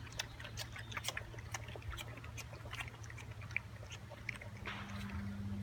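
A litter of puppies eating together from a shared bowl: many small, irregular chewing clicks.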